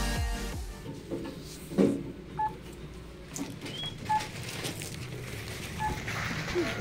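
Quiet shop ambience with rustling and handling of packaged goods, a single knock about two seconds in, and three short electronic beeps spaced evenly through the middle of the clip.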